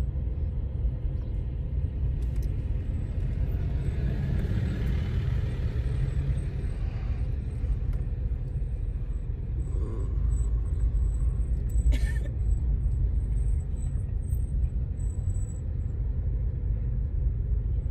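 Steady low rumble of a car's road and engine noise heard from inside the cabin while driving. A broader hiss swells for a few seconds partway through, and there is a single sharp click about twelve seconds in.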